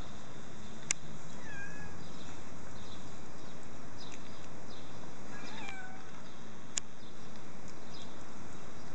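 Cat giving two short meows that fall in pitch, one about a second and a half in and another around five and a half seconds. Two sharp clicks come near the start and near the end.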